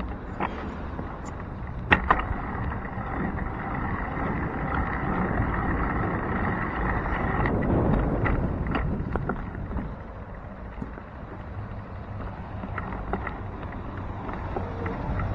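Street traffic and wind noise heard from a moving bicycle, with a vehicle passing close that swells to its loudest about halfway through. There are a couple of sharp knocks in the first two seconds.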